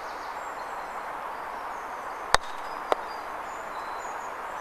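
Croquet mallet striking a ball with a single sharp crack, followed about half a second later by a fainter knock.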